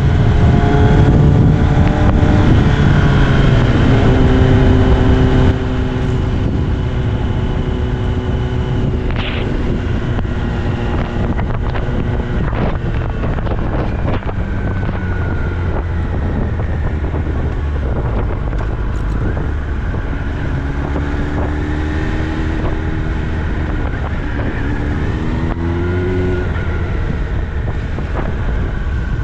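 Kawasaki ZX-10R inline-four running through an Austin Racing aftermarket exhaust. Early on the revs fall and the sound drops a step in loudness, then the bike runs at low revs. The revs rise in a couple of short climbs near the end.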